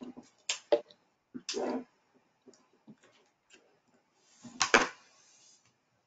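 Scattered small clicks and knocks with a few brief rustles, picked up over an open video-call microphone; the loudest knock comes about three-quarters of the way in.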